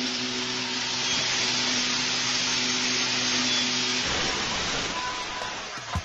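Electric water-pump motor running with a metal sander roller on its shaft: a loud steady hiss over a steady hum. Both stop about four seconds in, and the hiss dies away over the next two seconds as it spins down.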